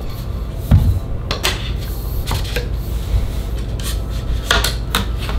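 Sections of a Body Glove stand-up paddle board paddle being slid and fitted together: rubbing and scraping of the shaft with a few sharp clicks and knocks, the loudest about a second in, over a steady low hum.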